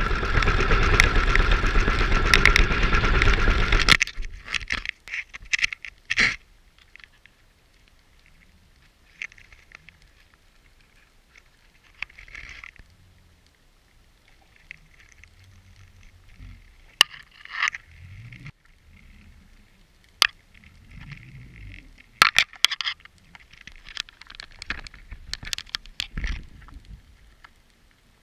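Underwater sound picked up by a GoPro in its dive housing as it is lowered on a weighted line: loud rushing water and bubble noise for about four seconds that cuts off abruptly, then quiet water with scattered sharp clicks and knocks.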